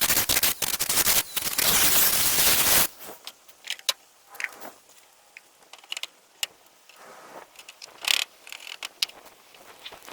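A loud rushing noise for about the first three seconds, then scattered sharp clicks and short metallic rattles of wire hardware cloth being handled and worked for a nesting-box floor.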